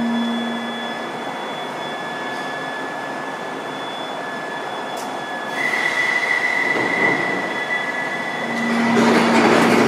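Bakerloo line 1972 Stock tube train standing at the platform with its doors open, its equipment giving a steady hum and hiss. A steady high-pitched tone comes in about halfway, and the noise swells louder near the end.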